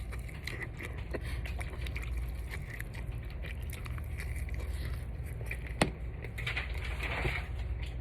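A person chewing a hot-sauce-coated chicken wing: small wet clicks and smacks with some breathing, over a steady low hum. One sharp click stands out a little before six seconds in.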